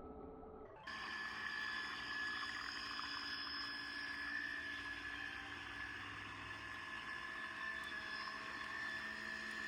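The small electric motor of a toy RC boat running with a steady whine, starting abruptly about a second in.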